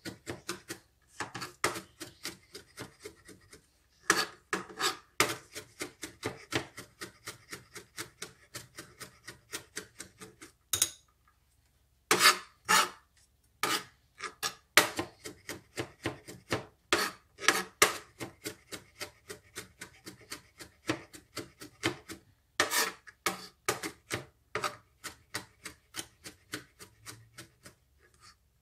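Chef's knife mincing garlic on a plastic cutting board: fast rocking chops, several knocks a second, with the blade scraping the board. There are a few short pauses, the longest near the middle.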